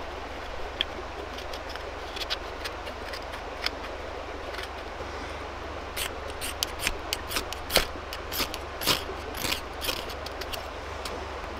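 Camping gear being handled and unpacked: irregular sharp clicks, rustles and scrapes that come thicker and louder in the second half, over a steady background hiss.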